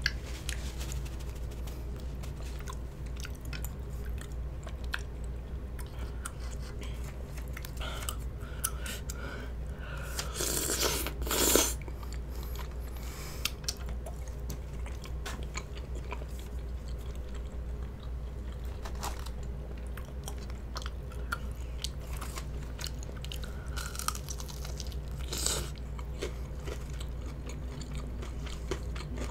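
A person chewing and biting food close to the microphone: soft wet clicks and crunches, with one louder noisy sound lasting about a second, about ten seconds in.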